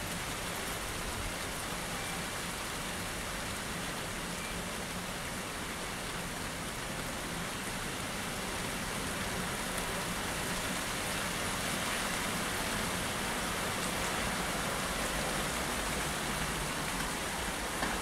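Heavy rain falling on wet pavement: a steady, even hiss of drops that grows a little louder about halfway through.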